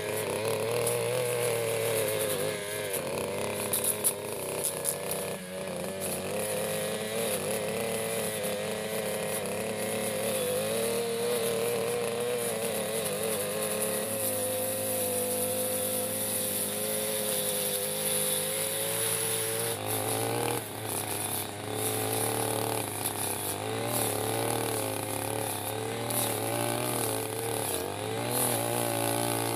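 Petrol backpack brush cutter running at high speed with a metal blade cutting tough carpet grass, its engine note wavering up and down as the blade takes the load. The sound changes character about two-thirds of the way through.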